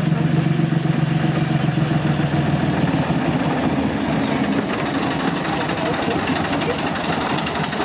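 Diesel engine of a small Barclay narrow-gauge locomotive running as it draws slowly up the line. The low engine note holds steady for about three seconds, then turns rougher and less even.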